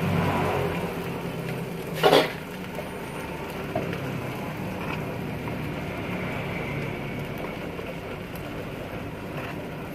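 Food frying in a hot wok over a gas burner: a steady sizzle and burner noise, with one short loud burst about two seconds in as a load of flat rice noodles goes into the wok.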